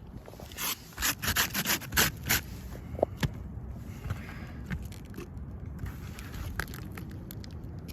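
A quick run of scraping strokes, about eight of them in the first two and a half seconds, then a sharp click and quieter rubbing.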